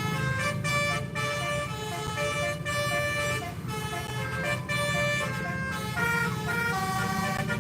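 Bus 'telolet' musical air horn playing a tune of quick, stepped notes that jump up and down in pitch, over the steady low rumble of the bus's engine.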